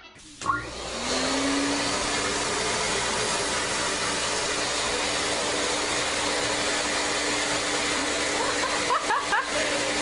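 An electric motor spins up about half a second in and then runs steadily, a loud rushing whir with a hum under it, in the manner of a vacuum cleaner. A few short rising squeaks sound about nine seconds in.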